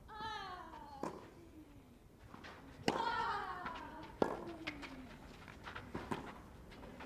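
Tennis rally on a clay court: sharp racket strikes on the ball every second or so, with the players' grunts falling in pitch on their shots. The loudest shot and grunt come about three seconds in.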